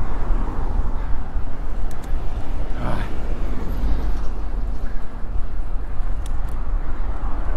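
Wind rushing over the microphone of a camera on a moving road bike, with road noise underneath. There is a brief swell about three seconds in.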